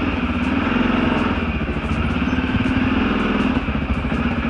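CFMOTO CForce 500 ATV's single-cylinder four-stroke engine idling steadily.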